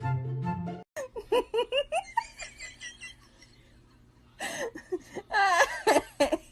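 High-pitched laughter in quick repeated bursts, loudest in the last two seconds. It starts after a short piece of background music cuts off about a second in.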